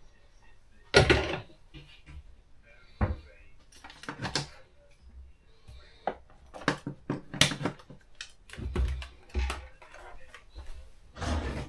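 Irregular knocks, clunks and clatter of things being handled and set down in a kitchen, with one loud knock about a second in and busier clusters later on.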